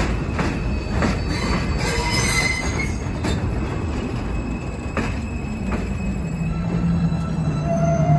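R160 subway train cars rolling over the elevated track. The steel wheels rumble and squeal, and sharp clicks at the rail joints come further and further apart. A low steady hum comes in near the end.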